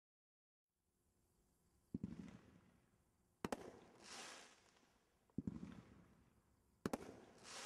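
Two shots from a 24-shot consumer fireworks cake. Each is a dull launch thump, then about a second and a half later a sharp double bang as the shell breaks, and a hissing crackle as the palm burst's crackling glitter goes off.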